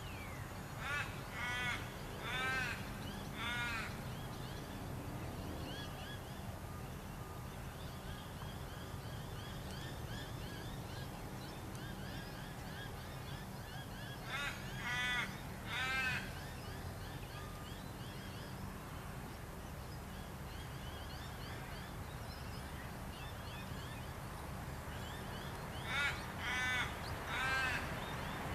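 A crow-like bird cawing in three runs of three or four calls, spaced about twelve seconds apart, over a steady low engine hum from the excavator.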